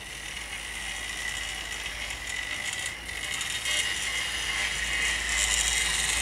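Two 00 gauge model Lord of the Isles single-wheeler locomotives double-heading a short rake of coaches: a steady electric-motor whine with fine clicking and clatter from the wheels on the track, growing steadily louder as the train comes closer.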